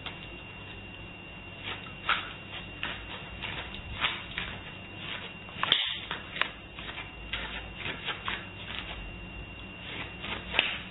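Soft scattered clicks and shuffling of a puppy's paws and claws moving about on a doormat and tiled floor, over a steady faint hiss with a thin high whine.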